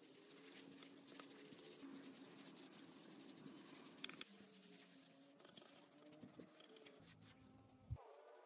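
Faint, scratchy rubbing of a sponge float being worked over fresh cement render on a curved wall, with a single short knock near the end.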